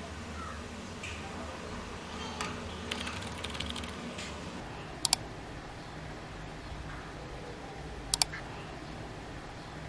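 Light handling taps and rustle as a USB cable is plugged into a small circuit board, then two sharp double clicks of a computer mouse, about three seconds apart, as menu items are picked.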